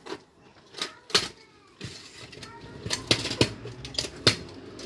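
Kick scooter clattering and knocking on hard ground during trick attempts: a string of sharp, irregular clacks of metal deck and wheels striking, several loud ones in the second half.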